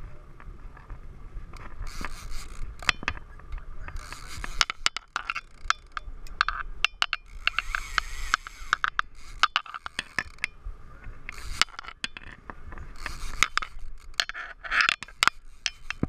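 Conventional saltwater fishing reel being cranked by hand, giving many irregular sharp clicks and rough scraping from the reel, rod and handle right at the microphone.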